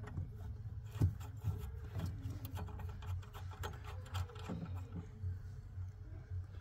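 Small metal tool clicks and scrapes as a hex key works the bleed screw on an oil burner's fuel pump, with a sharp knock about a second in, over a steady low hum.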